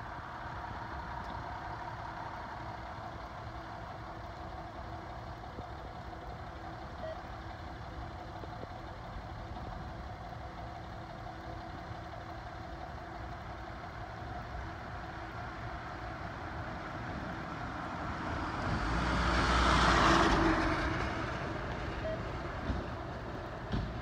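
Fire engine idling in the station bay, a steady low engine hum. About 19 seconds in, a louder rushing noise swells and fades over about three seconds.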